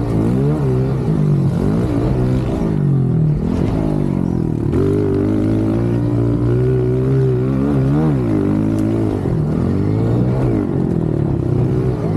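Honda CRF125 pit bike's single-cylinder four-stroke engine under hard riding, its pitch climbing and dropping over and over as the throttle is opened and shut, with short dips about half a second, two and a half, five, eight and ten and a half seconds in.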